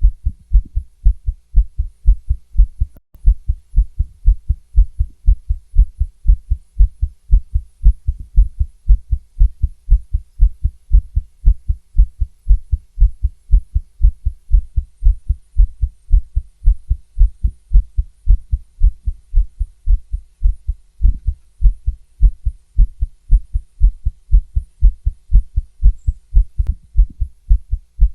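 A woman's fast heartbeat heard through a stethoscope: a steady run of low lub-dub thumps.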